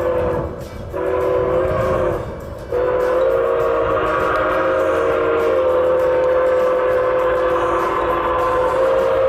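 Milwaukee Road 261's steam whistle sounding a chord of several notes: a blast ending about half a second in, a second blast, then a long held blast that runs on, over a low rumble from the train. The blasts are the locomotive's warning as it approaches a road crossing.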